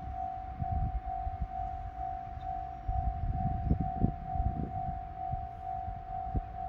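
Japanese railway level-crossing warning alarm ringing, one steady electronic tone pulsing evenly a few times a second. Under it are irregular low rumbles and thumps.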